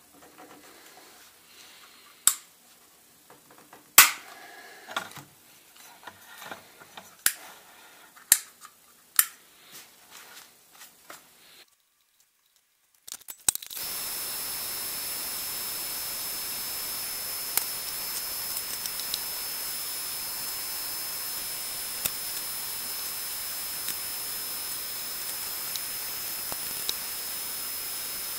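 Sharp clicks and knocks, a second or two apart, from hand work on the lamp's plastic base where a hole has been cut. After a short silence, a steady fan hiss with a thin high whine takes over: a benchtop solder fume extractor running during soldering.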